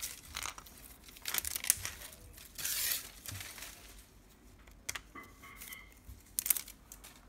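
Plastic wrapping on a Mini Brands capsule ball crinkling and tearing as fingers pick and pull at it, with scattered clicks of the hard plastic shell being handled. A louder stretch of rustling comes about two and a half seconds in.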